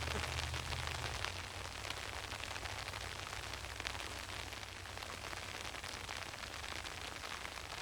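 Steady rain falling, heard as an even hiss full of many small drop hits. A low rumble under it fades out about a second in.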